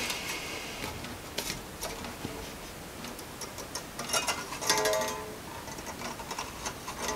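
Small clicks and ticks of flat pliers and steel piano wire as the 0.5 mm wire is gripped and pushed by finger into a hairspring curve. Twice there is a short ringing tone, the second near the end.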